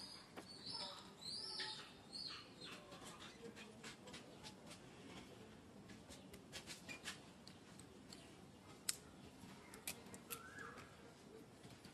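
Faint high chirping calls, several short down-arching chirps in the first two seconds, then scattered sharp clicks and ticks, one louder click partway through, and a short lower call near the end.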